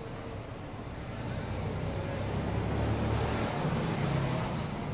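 A motor vehicle passing on a street, a low engine and road rumble that swells about a second and a half in and falls away near the end.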